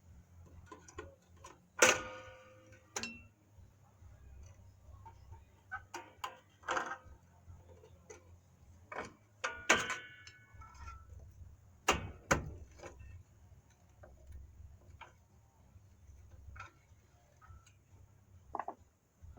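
Scattered metal clanks and clinks of hand tools and brake parts being handled, several strikes ringing briefly, the loudest about two seconds in and around ten and twelve seconds in, with quieter clicks between.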